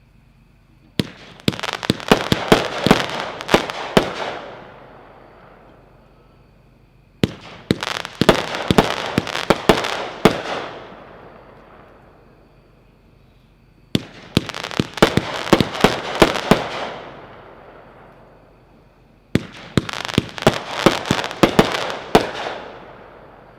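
Heavyweight Summer Inferno firework cake, 25 shots, firing in four rapid volleys of sharp shots a few seconds apart. Each volley trails off in a fading crackle over a couple of seconds.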